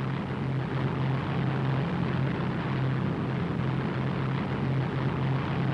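Steady drone of a propeller aircraft's engines heard from inside the plane: a low hum with a slight pulsing beat over a constant hiss.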